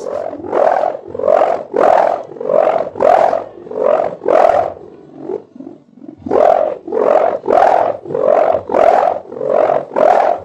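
Kite hummer (sendaren) with a mika plastic, tape and gift-ribbon strip on a reng-wood bow, droning with a snoring growl. It sounds in even surges about every two-thirds of a second, weakening briefly around the middle and then picking up again.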